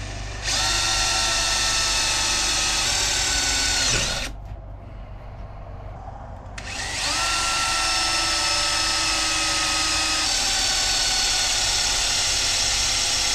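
Cordless drill boring down into the eye of an axe head to drill out the old handle, in two runs: the first about four seconds long, then after a short pause a longer one. Each run starts with a quick rise in pitch, then holds steady.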